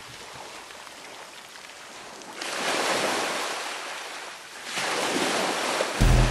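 Small sea waves washing onto a shingle beach: a low hiss of surf, then two louder swells of rushing water, the first rising about two and a half seconds in and the second following about two seconds later. Music comes in just before the end.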